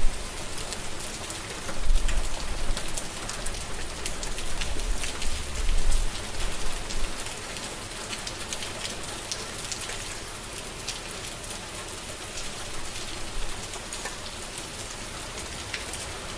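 Steady rain falling and pattering, with many separate drops striking a surface. Low rumbles of distant thunder swell twice in the first half, then the rain goes on alone.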